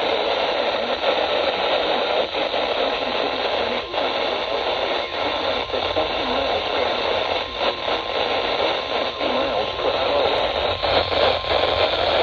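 Radio static: a steady hiss from a weak radio signal, with faint traces of a voice buried under the noise.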